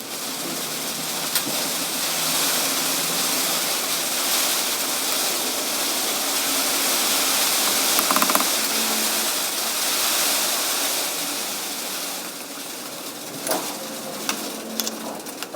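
Water running steadily, a constant rush that eases off after about twelve seconds, with a few light clicks near the end.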